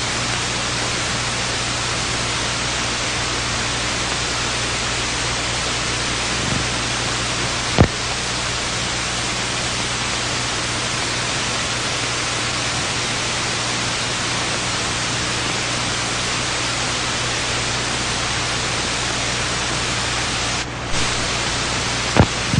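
Steady hiss with a low mains hum and a couple of sharp clicks: the noise floor of a silent film transfer that carries no recorded sound.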